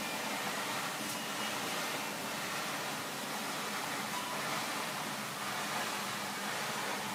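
Wallpaper trimming machine running, the printed paper feeding steadily through its rollers and edge-slitting blades: an even, unbroken mechanical noise with a faint low hum.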